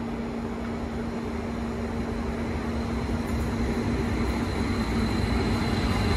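Vy Class 75 (Stadler FLIRT) electric multiple unit approaching and pulling into the platform. It grows steadily louder, and a thin high whine comes in during the second half.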